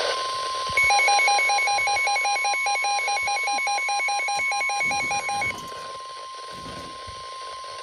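NOAA Weather Radio warning alarm tone: one steady, pure high tone held throughout, the signal that a warning message follows. From about a second in until about five and a half seconds, a louder, fast pulsing beep alarm of about five or six beeps a second sounds over it.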